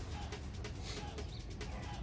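Background music with a steady fast beat and short melodic notes.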